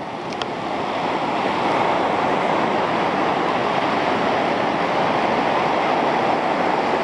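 Ocean surf breaking on a beach: a steady wash of waves that swells over the first second or two.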